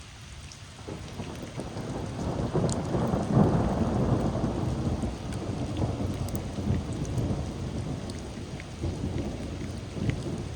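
Heavy rain falling, with a long low roll of thunder that builds about a second in, is loudest a few seconds in, and rumbles on through the rest.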